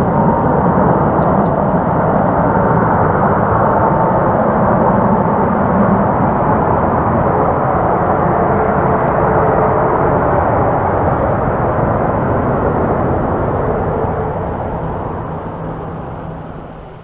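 Aircraft engines running loud and steady as the plane passes, then fading away over the last few seconds.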